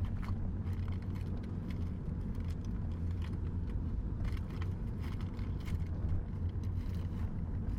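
Steady low rumble of a vehicle running, with faint scattered clicks and ticks.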